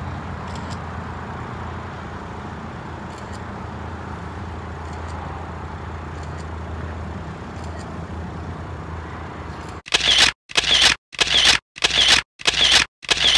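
A steady low hum for most of the stretch; then, about ten seconds in, a quick run of camera shutter clicks, about two a second, each cut off sharply.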